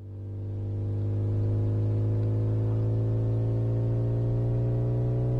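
Synthesized engine hum of an animated car's motor, starting up and swelling in over about a second and a half, then holding steady while its pitch rises slowly as the car speeds up.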